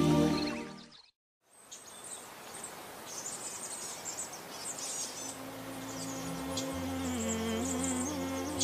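Music fades out within the first second; after a brief silence, a nature-ambience track of small birds chirping over a steady hiss comes in, joined about halfway by a low steady drone.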